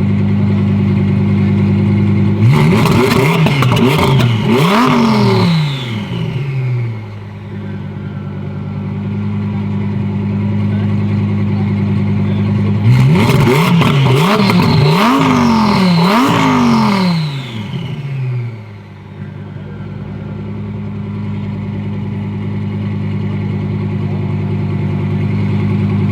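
Twin-turbo Audi R8 V10 drag car launching hard and accelerating through several rapid upshifts, twice about ten seconds apart. Each run fades as it pulls away. A steady engine idle runs underneath throughout.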